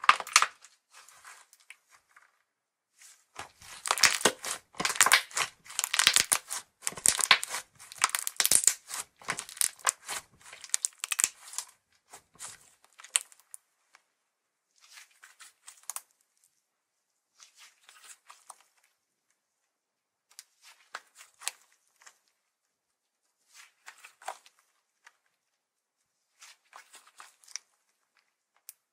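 Slime Japan's white 'Conversation Heart Ice' slime being squeezed and stretched by hand. There is a sharp crackle right at the start, then dense sticky crackling and popping for about eight seconds. After that, short bursts of crackle come every few seconds as the slime is pulled out into sheets.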